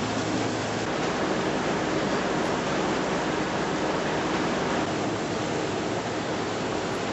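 Steady, even rushing noise that holds the same level throughout, with no distinct events.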